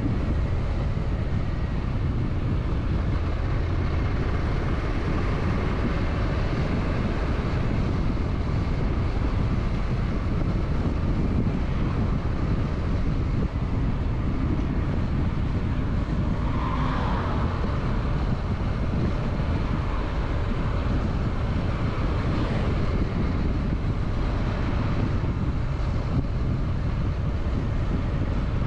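Motorcycle on the move: the engine runs under a steady, heavy rush of wind over the microphone.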